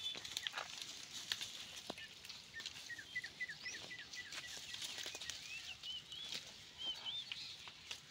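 Scattered crunches and snaps of steps on dry leaf litter and twigs as water buffalo walk along a path. A bird calls over it: a quick run of short chirps about three seconds in, then a few rising, curling whistles.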